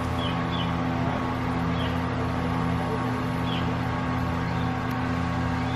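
A steady low mechanical hum, with a few short bird chirps now and then.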